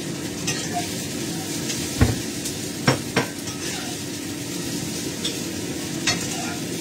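Food sizzling in a wok over a gas flame as it is stir-fried, the spatula stirring and tossing, with three sharp knocks of the utensil against the wok about two to three seconds in.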